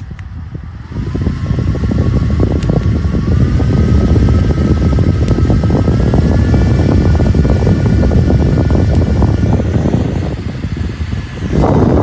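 Small handheld fan running, with a strong rush of air over the microphone. Its motor whine steps up in pitch three times as the speed is raised.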